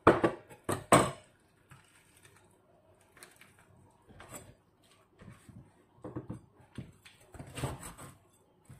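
Meat cleaver chopping into a whole fish's tough head on a wooden cutting board: three hard chops in the first second, then softer knocks and cuts about once a second.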